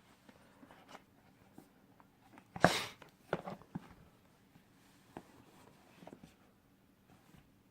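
Phone box and packaging being handled: a brief scraping rustle about two and a half seconds in, then a few light clicks and taps.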